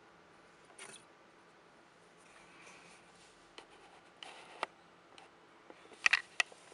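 Hand handling cork bark in a terrarium: scattered light rustles, scrapes and clicks, with the loudest, a quick cluster of sharp taps, about six seconds in.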